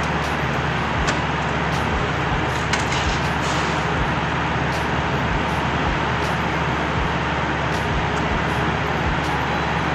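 Steady hiss with a low hum underneath, and a few faint clicks.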